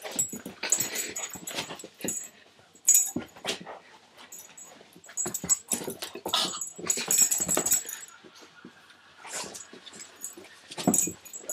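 A dog making noises in irregular short bursts while play-fighting with a person's hand, with scuffling in between.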